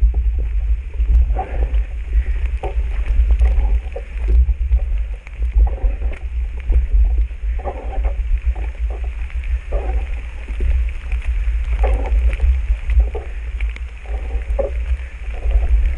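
A person breathing hard in short, repeated puffs and groans while climbing on foot, over a steady low wind rumble on the microphone.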